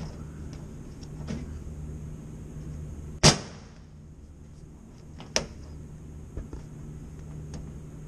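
Sharp metallic clack about three seconds in, then a lighter click two seconds later, from hands working at the disconnect switch and sheet-metal panel of a Trane fan-powered box, over a steady low hum.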